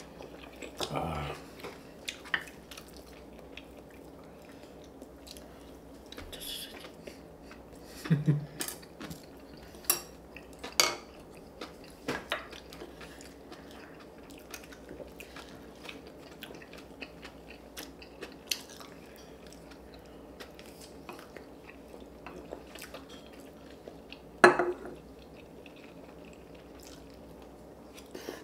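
Cutlery clinking and knocking against bowls and plates during a meal, a scattered handful of separate clicks with the loudest about 24 seconds in, along with chewing. A faint steady hum lies underneath.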